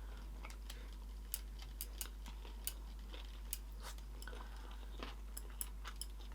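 Faint, close-miked eating sounds: soft chewing with small sharp clicks and crackles scattered through, over a low steady hum.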